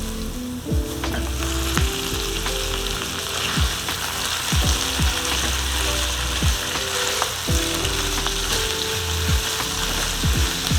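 Food frying in a pan with a steady sizzle, which grows louder about a second and a half in.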